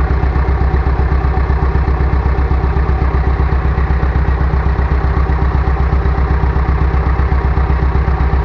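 Bulldozer's diesel engine idling steadily with a fast, even low rumble, warming up.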